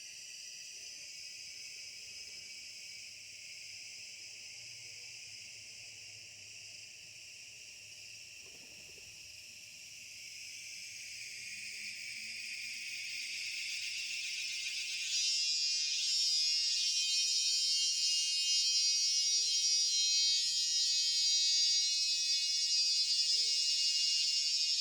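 High-pitched insect chorus. It is steady at first, swells from about ten seconds in, and gets suddenly louder into a dense buzzing about fifteen seconds in.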